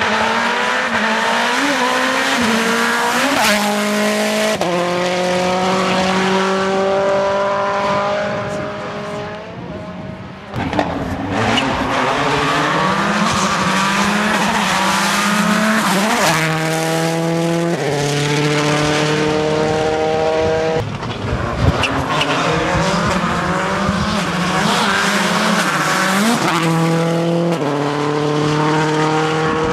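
Turbocharged WRC rally cars driven flat out: engines revving hard and climbing through the gears with quick upshifts, again and again. The sound fades about ten seconds in, before another stretch of hard acceleration, and there are a couple of sharp cracks.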